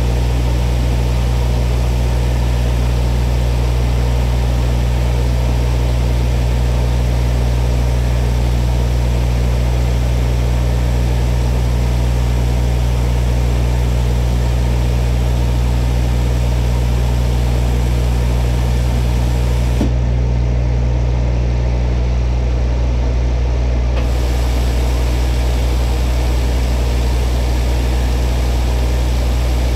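CNC milling machine running with a steady low hum as its large spinning cutter head machines a metal motorcycle mirror blank. The hiss above the hum goes dull for a few seconds about two-thirds of the way through.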